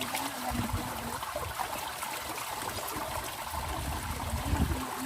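Stream water running and trickling steadily, with some low rumbling in the last couple of seconds.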